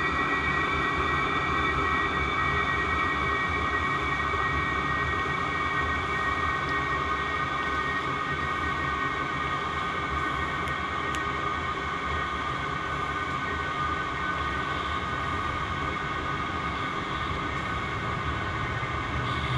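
Chinese-made 12-volt diesel air heater running: a steady whine from its blower fan over a low rumble, easing off slightly in level, with the rumble changing right at the end.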